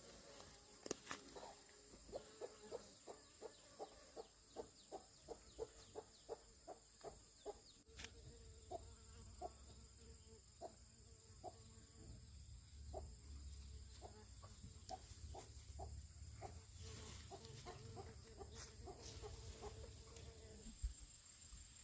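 Chickens clucking softly, a long run of short notes about two or three a second.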